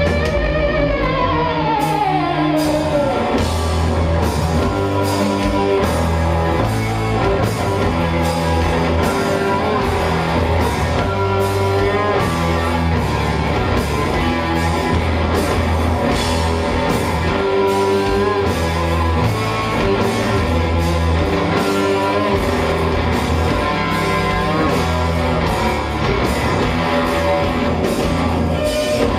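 Live rock band playing, with electric guitars, bass and drum kit. A long falling glide in pitch runs through the first few seconds over a steady bass line and regular drum beats.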